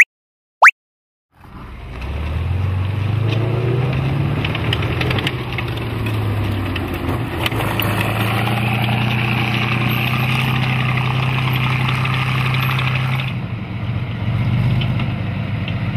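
Two short rising chirp sound effects, then a T-34 tank's diesel engine running as the tank drives. The engine climbs in pitch a few seconds in, then holds steady.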